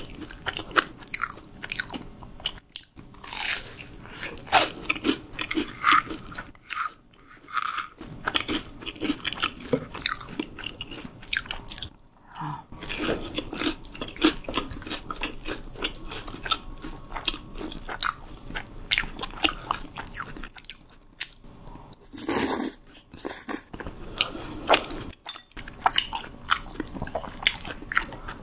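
Close-miked biting and chewing of crispy fried food: irregular crunching and crackling mouth sounds, with one louder crunch about three quarters of the way through.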